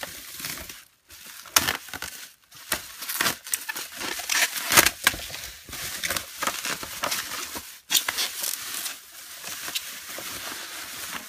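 Plastic bubble wrap crinkling and rustling as it is peeled off a box and pulled out of a cardboard carton, in a string of irregular crackles with a loud crunch a little under five seconds in.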